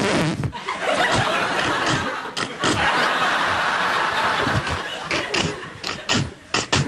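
Studio audience laughing for several seconds. Near the end, a run of short, sharp, rhythmic mouth-made sound effects into a microphone begins.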